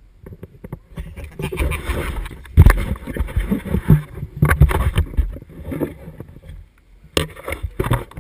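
Handling noise close to the microphone: rustling, rubbing and irregular knocks as the wearable camera is moved and its holder fumbles with gear, loudest in the middle and again in a short burst near the end.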